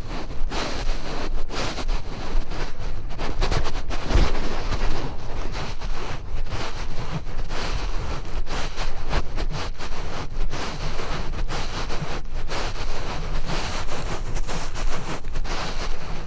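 Wind buffeting the camera microphone: a steady rushing noise with a heavy low rumble.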